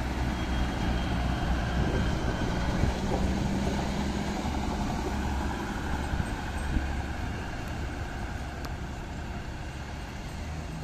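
Diesel engine of a KAI inspection railcar running as the train moves along the track, a steady low drone that slowly fades toward the end.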